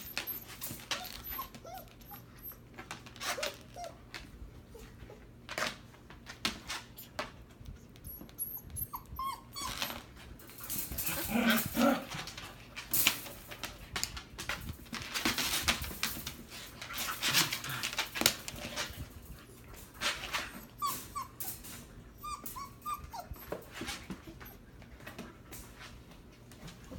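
A Siberian husky mother and her 7-week-old puppy play-fighting: irregular scuffling with short high whines and yips breaking in now and then, busiest around the middle.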